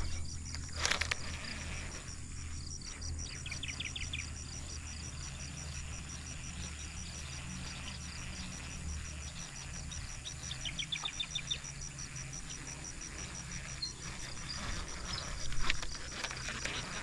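Pondside ambience: an insect chirping in a fast, even pulse, with two short bird trills. There are sharp knocks and rustles from handling a baitcasting rod and reel about a second in and near the end, the one near the end being the loudest sound.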